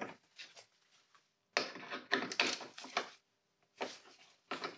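Ratchet with a T30 Torx socket on an extension undoing a headlight mounting screw: short bursts of ratchet clicking from about a second and a half in, with two more clicks near the end.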